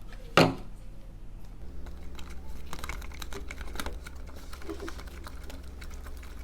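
Confetti slime being mixed with activator in a plastic bowl: a sharp knock about half a second in, then a run of light clicks and ticks, with a low steady hum starting about a second and a half in.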